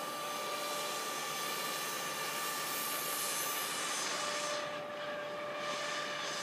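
Scale-model hovercraft running across the water at a distance: a steady whine from its fan drive over an even hiss.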